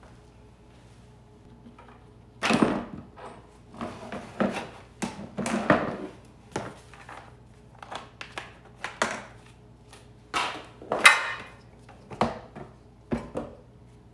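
Plastic engine covers being lifted off a Briggs & Stratton Quantum mower engine and handled: a string of irregular clatters and knocks of hard plastic, the loudest a little before the end.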